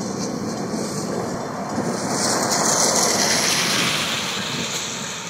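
Distant freight train with diesel locomotives approaching, heard as a low rumble. Over it a rushing noise swells about two seconds in and fades again.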